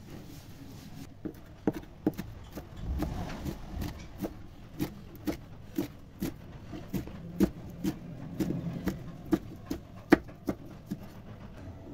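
Chef's knife chopping fenugreek leaves on a wooden cutting board: a string of sharp knocks about two a second, slightly uneven, starting about a second in.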